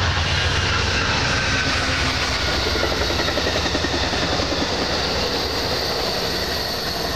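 Steady roar of an aircraft passing overhead, slowly fading, with faint engine tones drifting down in pitch.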